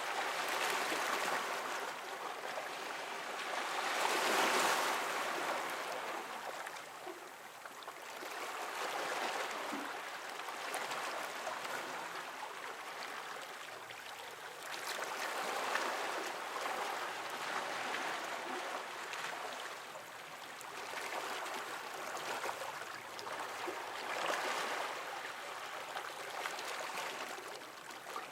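Small waves washing and lapping against shoreline rocks, picked up close to the water's edge. Each wash swells and fades, every three to six seconds.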